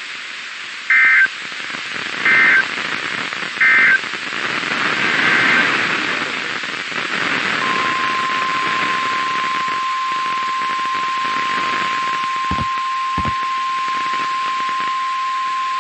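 Weather-radio alert audio over static hiss: three short two-tone data bursts about a second and a half apart, the SAME end-of-message code. After a few seconds of hiss the weather radio's single steady warning alarm tone begins and holds, with two brief clicks partway through.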